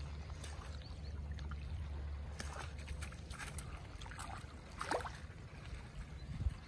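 Small waves lapping and trickling over seaweed-covered rocks, with a steady low wind rumble on the microphone that is strongest in the first half. Scattered crackles and squelches of a dog's paws stepping on wet rockweed.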